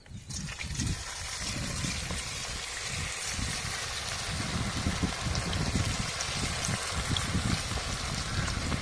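Marinated chicken pieces deep-frying in hot oil: a steady, dense sizzle that starts abruptly just as the chicken goes in, with an uneven low rumble underneath.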